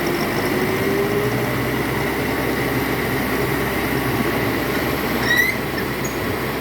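Dump truck's diesel engine running hard under load as it tries to climb a slippery, rain-soaked slope, a steady heavy mechanical din.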